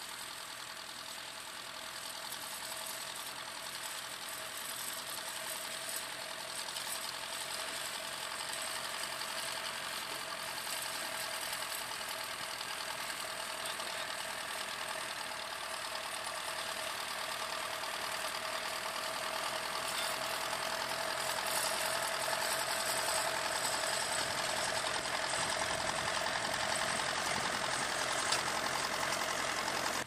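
Vintage tractor engine running steadily while pulling a plough, growing gradually louder as the tractor draws nearer.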